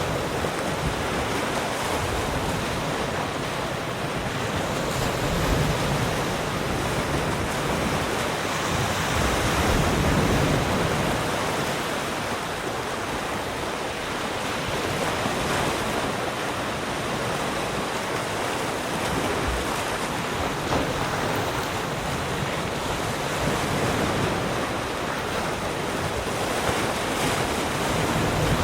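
Sea surf: waves breaking and washing on the shore in a continuous rush, swelling gently every few seconds.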